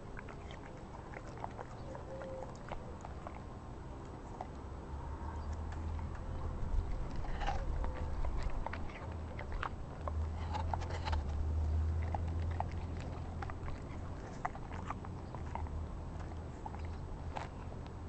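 Czechoslovakian wolfdog biting and chewing an apple: irregular small wet crunches and clicks, with a low rumble underneath that swells twice.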